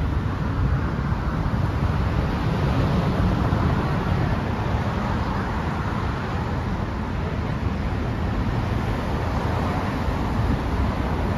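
Steady road-traffic noise from cars driving on the roadway deck beneath the bridge's pedestrian walkway.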